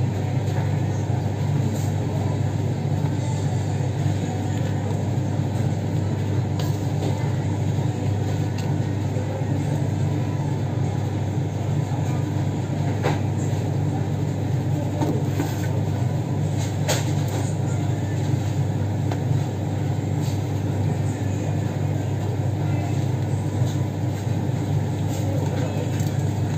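A steady low machine hum, even in level throughout, with a few faint clicks about halfway through.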